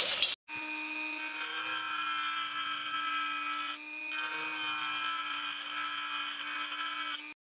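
Dremel rotary tool with a cone-shaped grinding bit spinning fast and grinding a hole into the reel's black plastic housing: a steady high whine that dips briefly about halfway through and stops near the end.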